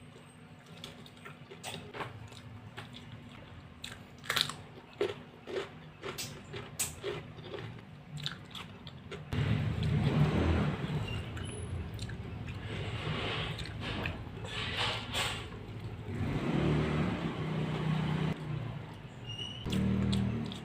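Close-up chewing and biting of raw chili peppers with sambal: scattered crisp crunches at first, then from about nine seconds in a louder, continuous chewing.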